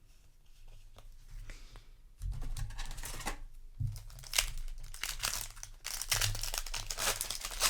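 Crinkling and tearing of a Magic: The Gathering booster pack's foil wrapper, handled by hand, starting about two seconds in and continuing as a dense crackle.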